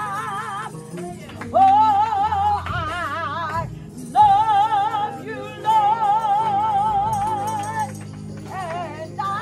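A woman singing a gospel solo at full voice, holding long notes with a wide vibrato, over a steady low sustained accompaniment.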